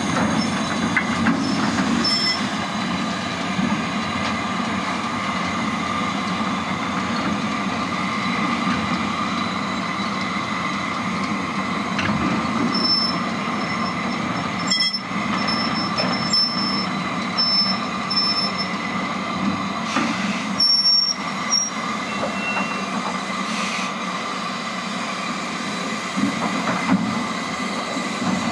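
BR Class 8F 2-8-0 steam locomotive moving slowly with a freight train, its motion and the wagon wheels making a steady rumble. Short high-pitched squeals from the wheels sound now and then from about halfway through.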